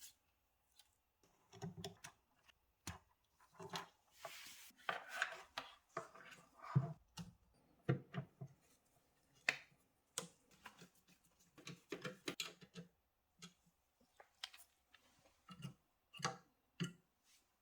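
Hands handling and fitting PC hardware into a small case: faint, irregular clicks and taps with a few short rustles.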